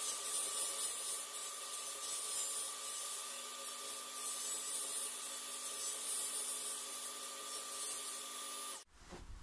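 Table saw running with a steady whine while its blade rasps at the edge of a wooden disc being turned against it to cut a round wheel. The sound cuts off suddenly near the end.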